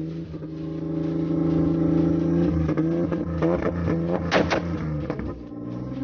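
Modified off-road jeep's engine running close by at a fairly steady speed, with a few short knocks about three and a half to four and a half seconds in.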